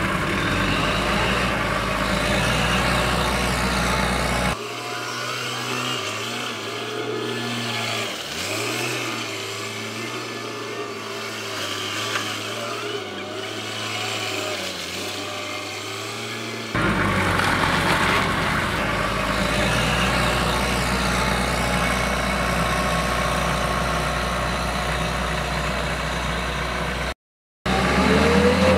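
XCMG FD30T 3-tonne diesel forklift's engine running steadily as the truck drives with a 3000 kg load, then revving up near the end as it starts up a ramp.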